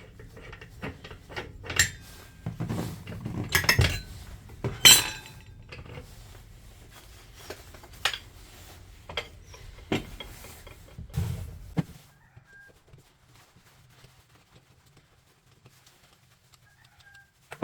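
Irregular clicks, clinks and knocks of hard objects being handled, with a few louder knocks, stopping about twelve seconds in.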